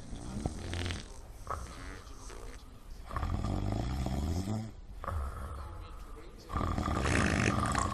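A person snoring: a shorter snore near the start, then two long snores later on, the last one the loudest.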